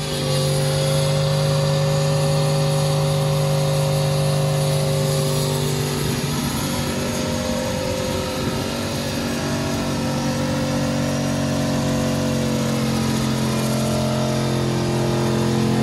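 Pickup truck's engine held at high, steady revs during a burnout, its rear wheel spinning and smoking on the grass. It is a continuous drone that holds its pitch, with a small sag about six seconds in.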